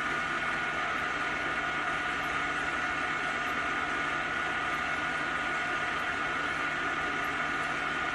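A 60-year-old Schaerer engine lathe running, slowly turning a differential housing in its chuck: a steady mechanical hum with a constant high whine.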